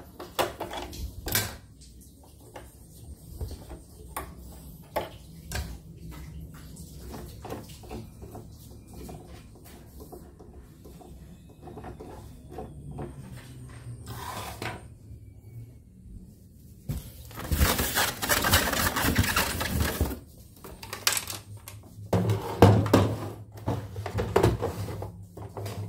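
Clicks, knocks and rubbing of the plastic parts of a CNY portable embroidery machine as it is handled by hand, the handwheel turned and the embroidery unit moved. A longer, louder stretch of rubbing noise comes about two-thirds of the way through, with more knocks after it.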